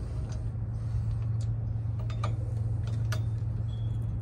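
A few light metallic clicks and taps from hand tools and parts at a car's wheel hub, as the wire-wheel adapter is worked on. They come irregularly, roughly one a second, over a steady low hum.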